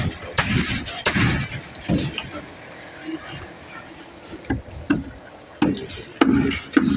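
Sharp knocks and clinks of construction work, about six strikes at irregular intervals.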